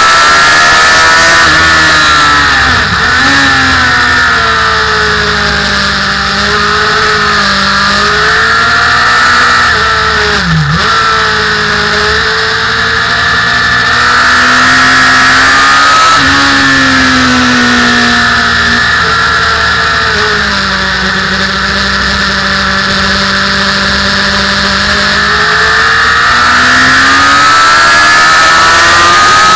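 Motorcycle engine heard on board at speed, its revs falling and dipping as the rider brakes and shifts down for a slow corner, then climbing again near the end as it accelerates hard. Heavy wind rush on the microphone runs under it.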